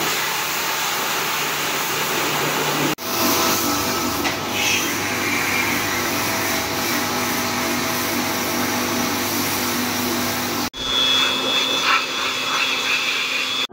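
Electric pressure washer running: a steady motor hum under the hiss of the water jet spraying foam onto a motorcycle. The sound drops out briefly twice.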